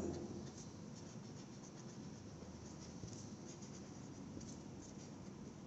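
Pen writing on a sheet of coloured paper on a desk: faint, irregular scratching of the pen strokes as words are written out.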